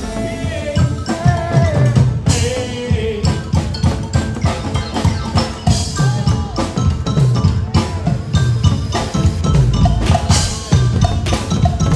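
Percussion music with a drum kit beat: bass drum, snare and rimshots keep a quick, even rhythm, with a melody over it.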